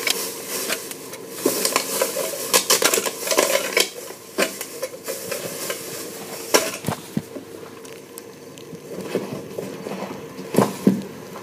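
A plastic grocery bag of garbage crinkling and rustling as it is lifted out and handled, with small clicks and clatter from the things inside. The rustling is thickest in the first few seconds, and there are two sharper knocks, about six and a half seconds in and near the end.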